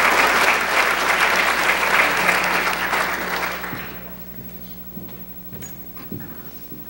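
Audience applauding, dying away about four seconds in, followed by a few faint knocks.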